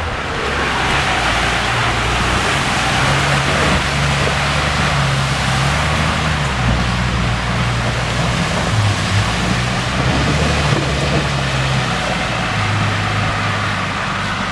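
Wind gusting across the microphone: a steady loud rush with uneven low rumbling buffets.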